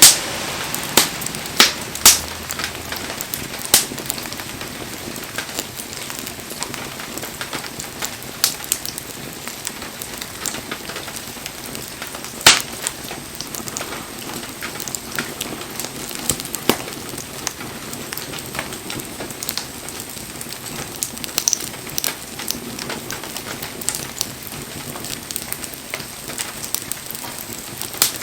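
Wood bonfire burning: a steady crackle and hiss, broken by sharp pops from the burning logs. Several loud pops fall in the first four seconds and another strong one about twelve seconds in.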